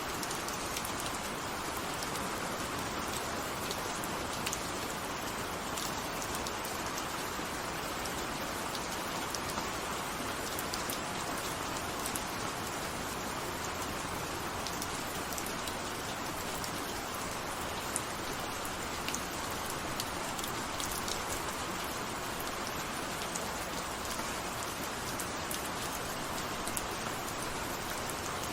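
Steady rain falling, a constant even hiss of rain on a surface with scattered individual drop ticks.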